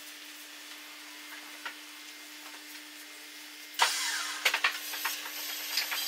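Wood being worked by hand: scraping and rubbing with a few knocks and clicks, starting suddenly about four seconds in, over a faint steady hum.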